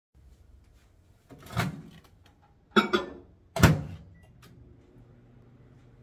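Three clunks, the middle one doubled, then a short high beep and a steady low hum that starts near the end: a microwave oven's door being shut and the oven started, running to reheat food.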